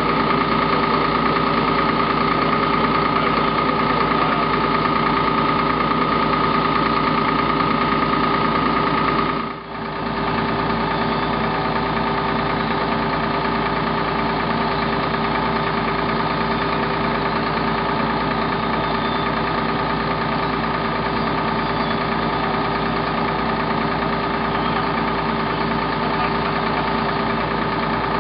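Fire engine's diesel engine running steadily, a continuous drone with a steady hum over it. The sound drops out for a moment about ten seconds in, then resumes unchanged.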